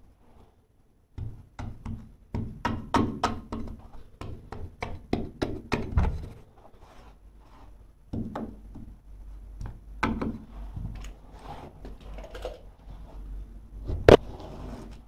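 Knocks and taps from carpet being worked and pressed into a corner by hand: a quick run of about three a second, then a few scattered thuds and one loud sharp knock near the end.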